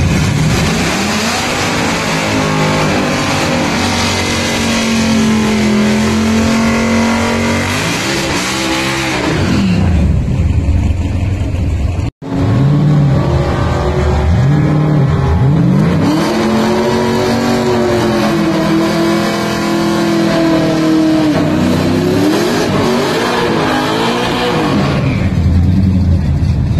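Drag-racing cars' engines revving hard, climbing to a high pitch held for several seconds, then swooping down and up. After a brief dropout about twelve seconds in, another pair of cars' engines rev high and steady through smoky burnouts, with several falling and rising revs near the end.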